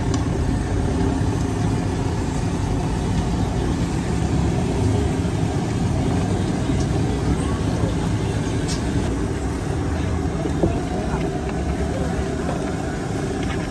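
Steady low rumble of street traffic, like vehicles idling nearby, with a few faint light clicks.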